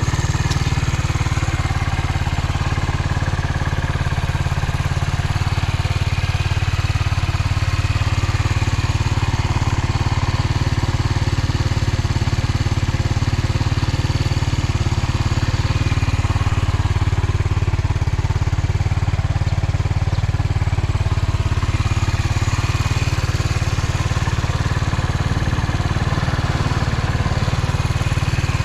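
Suzuki Volty's air-cooled single-cylinder four-stroke engine idling steadily, running without any abnormal noise.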